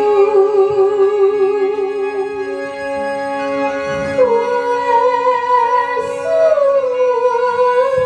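Live Banyuwangi traditional ensemble music: a slow melody with vibrato that slides between notes, played over steady held tones.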